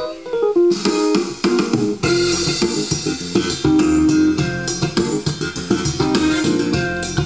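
Electronic arranger keyboard playing a built-in demo song through its speakers: guitar and bass voices over a rhythm backing. The piece opens with a quick rising run of notes.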